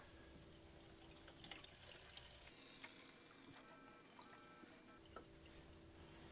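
Faint trickle of E85 fuel poured from a plastic gas can's spout into a small 1-liter fuel tank, with a few faint clicks.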